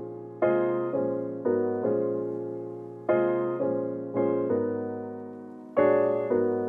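Background piano music: chords and notes struck every half second to a second, each left to ring and fade.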